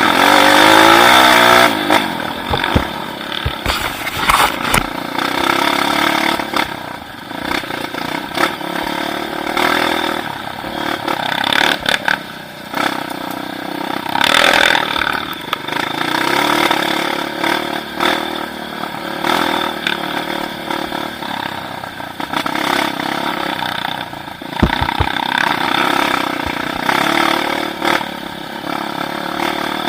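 Motorcycle engine running and revving up and down, its pitch rising and falling, loudest at the start, with a few low knocks.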